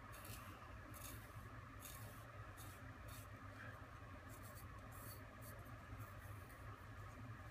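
Zirconia ceramic knife blade shaving arm hair: a series of faint, short scraping strokes, roughly one every half second to second, irregularly spaced.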